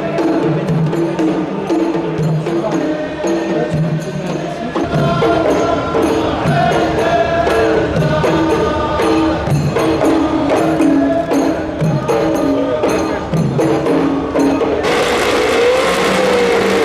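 Upbeat funky pop background music with a steady percussive beat. About fifteen seconds in, a loud race car engine at high revs suddenly comes in.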